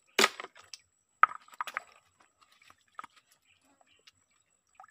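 Freshwater snail shells clicking and clinking as they are dropped into a plastic bucket onto a pile of other snails, with a few sharp knocks in the first two seconds and fainter ticks after.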